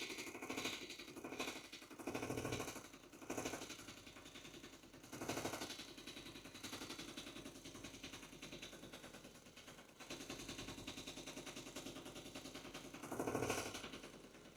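Small electric motor of a mini desktop sanding and polishing machine spinning a polishing wheel at reduced speed (12 V), with a fast, quiet rattling chatter. Several louder bursts come and go as polishing compound is pressed onto the wheel to load it.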